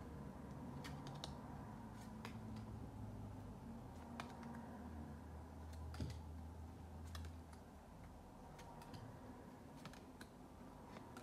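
Photocards being shuffled through by hand, the card edges giving light, scattered clicks and taps, with one sharper tap about six seconds in.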